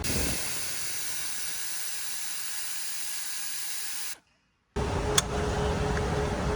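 Steady hissing noise that cuts off abruptly about four seconds in. Under a second later it returns with a faint steady hum and a single sharp click.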